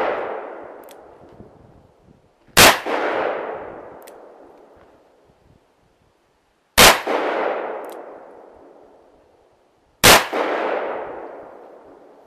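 Three pistol shots about three to four seconds apart. Each one trails off in an echo over about two seconds, and a faint tick follows shortly after each shot.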